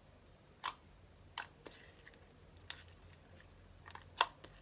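Borax-activated slime being stretched and pressed by hand, giving about five sharp, sticky clicks and pops at irregular intervals, two of them close together near the end.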